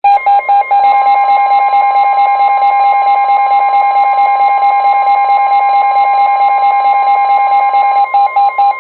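Weather alert radios sounding their alarms together for a special marine warning: several steady tones with a fast pulsing beep, switching on and off a few times in the first second and again near the end, over a steady warning tone.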